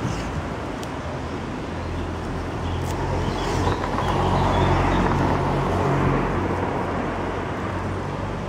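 Road traffic noise: a motor vehicle's engine hum and tyre noise swell as it passes through the middle, then ease off.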